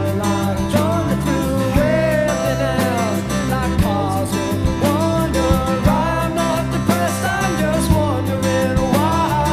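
A rock band recording: guitar and bass over drums with a steady beat, and pitched lines that bend up and down.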